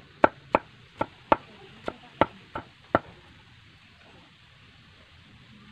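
Machete blade chopping a peeled bamboo shoot against a wooden block: about nine sharp chops, roughly three a second, stopping about three seconds in.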